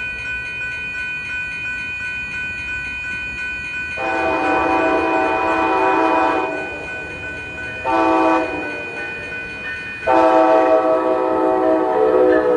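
Locomotive air horn on an Altamont Commuter Express train, sounding a multi-note chord in three blasts: a long blast about four seconds in, a short one, then another long one.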